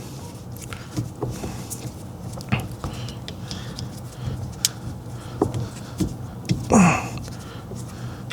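Scattered light clicks and taps of parts being fitted on a car's steering column, over a steady low hum. A short breathy grunt comes about seven seconds in.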